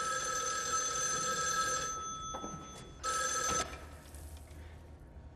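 Telephone bell ringing twice: a long ring of about two seconds that fades, then a shorter ring a second later.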